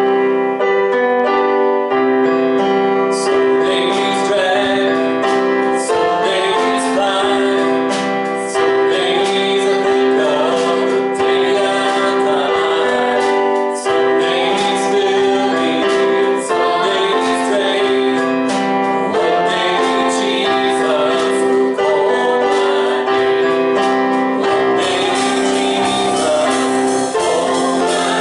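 Gospel worship music: keyboard chords with singing, and a steady percussion beat that joins about three seconds in.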